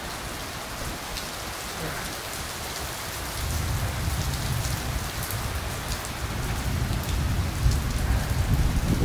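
Heavy rain pouring onto a cobbled square and wet paving: a steady hiss of the downpour with splashing drops. A low rumble joins it a few seconds in.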